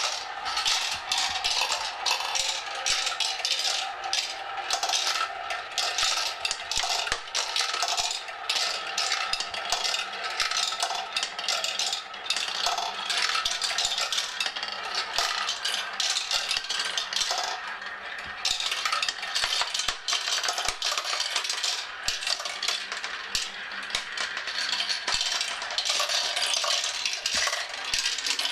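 Many marbles clattering down a staircase marble run, a dense stream of small clicks and knocks with a faint ringing.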